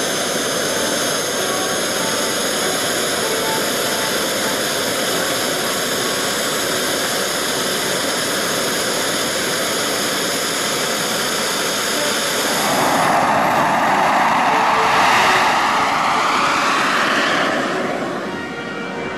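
Model jet turbine on the Fox MD1 sailplane's pylon running with a steady high whine and rush, then spooling up to a louder roar about two-thirds of the way through for the takeoff run. The roar falls in pitch as the glider rolls away, and fades near the end.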